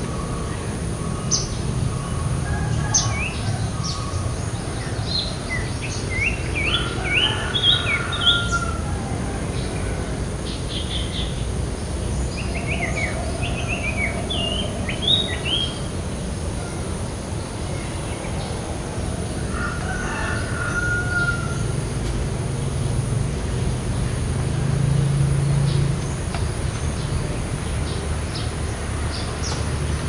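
Trilling shrike-babbler (Pteruthius aenobarbus) singing: clusters of quick, high, rising notes, about six seconds in, again around thirteen seconds, and briefly near twenty seconds, over a steady low rumble.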